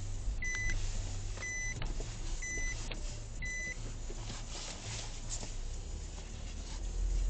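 A car's electronic chime beeps four times, about once a second, then stops, over the steady low rumble of the car driving, heard from inside the cabin. The road rumble grows louder near the end.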